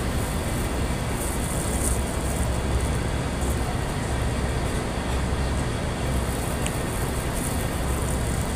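Steady outdoor background noise: a constant low rumble under an even hiss, with no distinct events.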